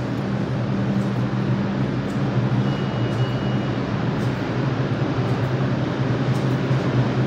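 New York City subway train at the platform, a steady low hum over an even rushing noise that grows slightly louder, with a short faint high tone about three seconds in.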